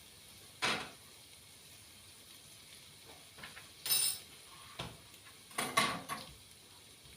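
Kitchenware being handled: a few separate knocks and clinks of dishes and utensils. One bright clink comes about four seconds in, and a short cluster of clatter follows near the end.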